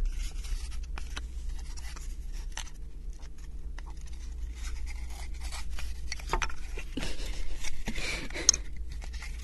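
Thin laser-cut wooden puzzle pieces rubbing, scraping and clicking against each other as they are pushed into tight-fitting slots, with one sharper click about 8.5 seconds in.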